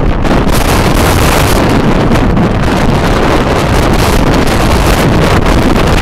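Storm-force wind buffeting the microphone: a loud, continuous rush with a heavy low rumble.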